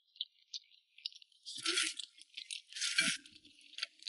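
Eating sounds: light clicking of chopsticks against bowls, then two short noisy slurps of rice noodles about one and a half and three seconds in.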